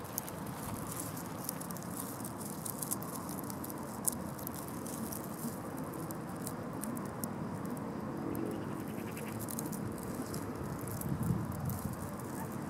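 Steady outdoor background noise with scattered light clicks and taps.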